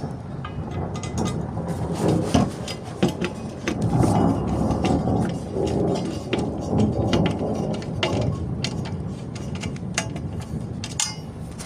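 A screw being turned out of a white metal battery mounting frame with a hand screwdriver: scattered small metallic clicks and scrapes, over a low rumbling handling noise.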